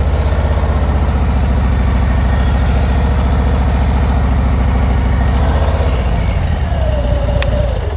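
Heavy touring motorcycle's engine running at low speed with a steady, loud low pulsing, the revs held a little above idle with the clutch slipping ("preloaded") as the bike creeps through a slow U-turn.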